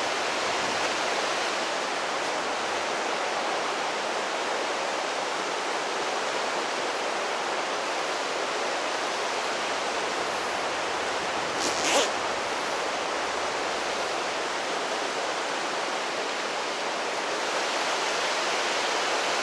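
River rapids rushing steadily. One short rasp stands out a little past halfway.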